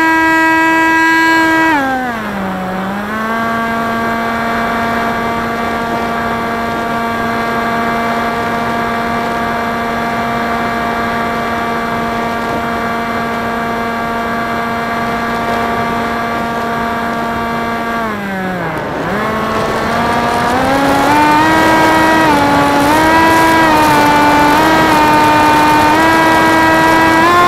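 Brushless electric motor and propeller of a Theory Type W flying wing, heard from its onboard camera: a steady whine whose pitch follows the throttle. It drops about two seconds in and holds level. It dips briefly about two-thirds of the way through, then climbs back higher in small steps.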